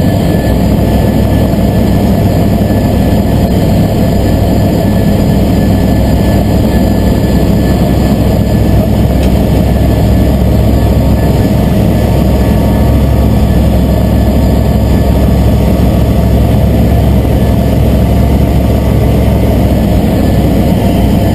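Aeroprakt A22LS ultralight's Rotax 912 four-cylinder engine and propeller running at a steady, unchanging power, heard loud from inside the cockpit.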